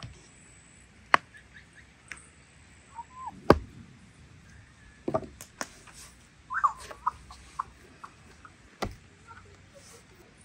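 Dough being handled and kneaded on a wooden board: scattered sharp knocks and thumps against the wood, the loudest about three and a half seconds in. Short bird chirps sound in between.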